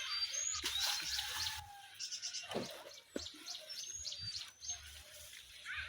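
Outdoor birds chirping: many short high chirps and quick whistled notes scattered throughout, with a low steady rumble under the first second or so.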